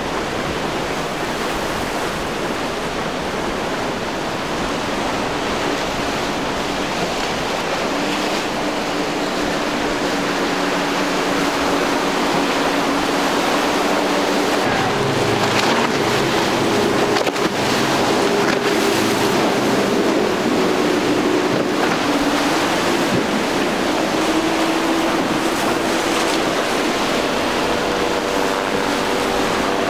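Waves and surf washing against the shore, with wind on the microphone. From about eight seconds in, the steady drone of passing boats' outboard motors joins it and grows louder, its pitch shifting as different boats go by.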